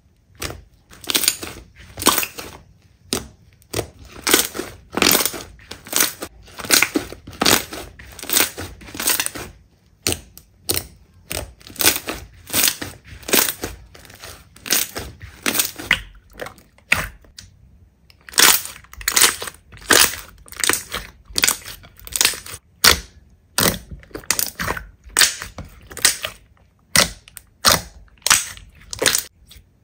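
Slime squeezed and pressed by hand, a sharp squishing crackle with each squeeze, repeated about one to two times a second, with a couple of short pauses.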